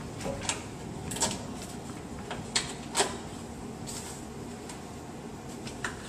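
Foam bumper support being handled and pressed onto a car's front bumper beam: a handful of scattered light knocks and clicks of foam and plastic against the beam, over a steady low hum.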